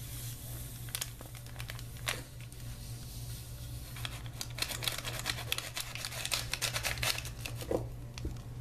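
Plastic powder sachet crinkling as it is handled and squeezed empty over a plastic measuring cup: scattered light crackles, thickening into a dense run of crinkling about halfway through.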